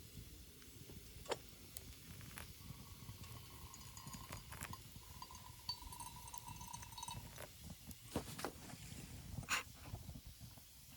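Campfire burning with occasional sharp pops over a low rumble, and a faint steady tone for a few seconds in the middle.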